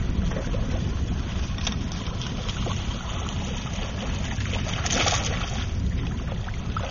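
Steady low rumble of wind and water noise around an open boat, with faint scattered clicks and a short burst of hiss about five seconds in.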